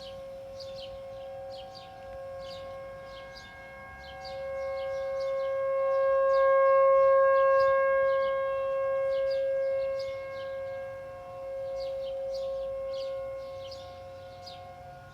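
Outdoor tornado warning siren sounding a steady tone during its test, swelling to its loudest about halfway through, fading, then rising again briefly near the end.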